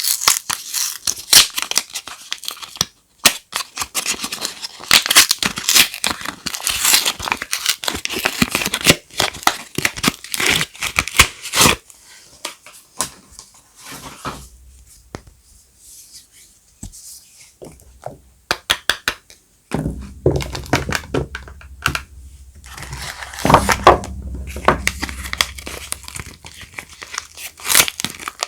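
Soap wrapping being torn open and crinkled by hand: dense crackling and rustling, quieter for a while midway, then resuming over a low rumble.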